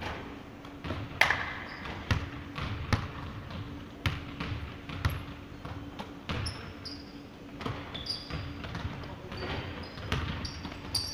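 Basketball bouncing on a hardwood gym floor in irregular dribbles and thuds, echoing in the large hall, with brief high sneaker squeaks in the second half as players cut and stop.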